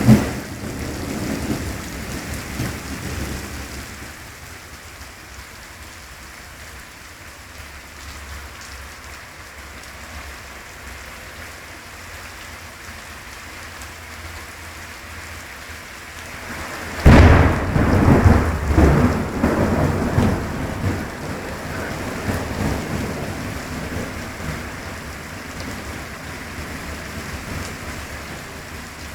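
Thunderstorm: steady heavy rain, with the tail of a thunder rumble fading over the first few seconds. About seventeen seconds in, a close thunderclap cracks suddenly and rolls on in rumbles for several seconds before fading back under the rain.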